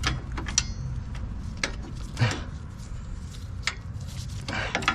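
Scattered, irregular metallic clicks and clinks of sway bar hardware and tools being handled and worked into place under a car.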